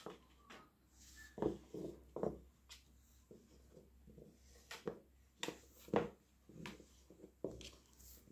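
Paper popcorn bucket sliding and bumping across a wooden parquet floor, pushed along by a cat hidden underneath it: faint, irregular scuffs and light knocks.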